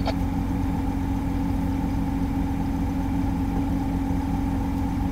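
Mercedes-Benz Axor 2528 dump truck's diesel engine idling steadily, heard inside the cab, with an even hum and no change in engine speed.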